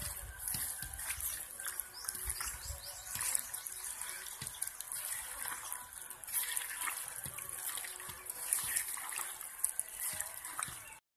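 Wet squelching and squishing of a hand mixing meat pieces through thick masala paste in a clay pot, an irregular run of small slaps and squeezes. The sound cuts off suddenly near the end.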